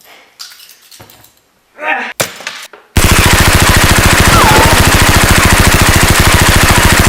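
A sudden, long burst of very rapid automatic machine-gun fire starts about three seconds in and goes on without a break. It is preceded by a few short faint knocks and a click.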